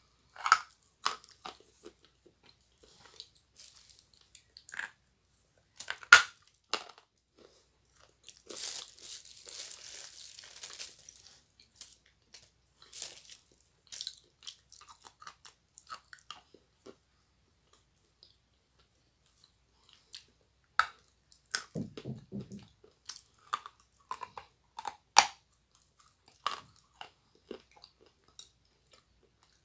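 Teeth biting into a very hard lump of edible clay: sharp, scattered crunches with chewing between them, the loudest crunches about six seconds in and near twenty-five seconds. A soft scratchy hiss runs for a couple of seconds around nine seconds in.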